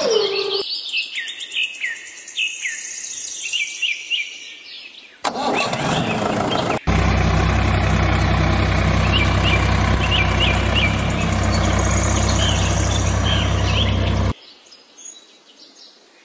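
Birds chirping throughout. About five seconds in, a tractor engine starts and then runs loud and steady, cutting off suddenly near the end.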